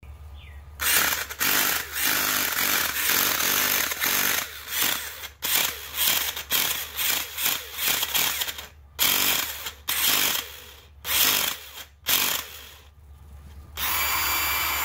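Ryobi cordless tire inflator's compressor motor starting and cutting out in many short, stuttering bursts, a 'wee wee wee' grunt, then running steadily near the end. The stutter is the sign of a chunked-off gear that isn't grabbing.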